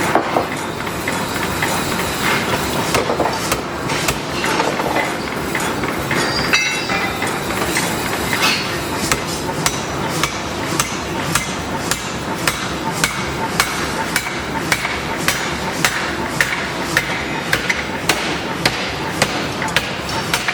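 Hammer blows on metal during forging: sharp strikes, irregular at first, then settling into a steady rhythm of about two to three a second, over a constant background of shop noise.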